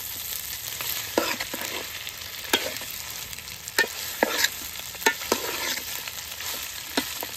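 Already boiled goat head meat frying in oil in a large metal pot with a steady sizzle, while a metal spoon stirs it, clinking and scraping against the pot every second or so.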